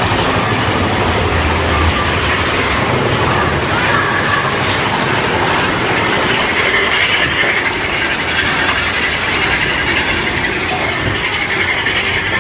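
Big Thunder Mountain Railroad mine-train roller coaster running along its track, a loud, steady rattling rumble.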